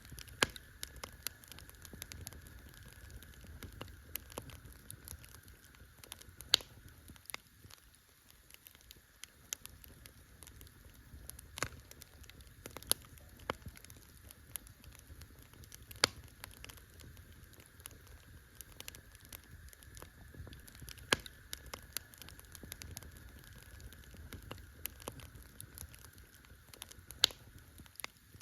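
Campfire burning, with irregular crackling and about a dozen sharp, louder pops scattered through, over a low rumble underneath.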